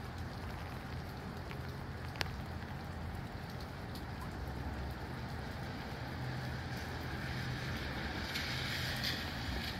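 Rain and breezy wind: a steady hiss of rain over a low rumble of wind, with a single sharp drip-like tick about two seconds in and a brief louder rush near the end.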